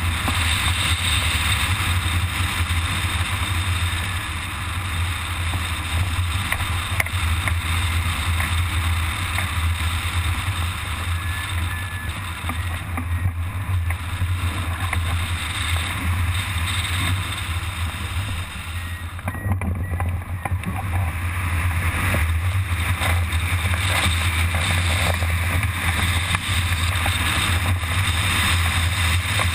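Airflow rushing over a camera microphone fixed to a hang glider in flight: a steady, loud wind hiss with a deep rumble of buffeting underneath.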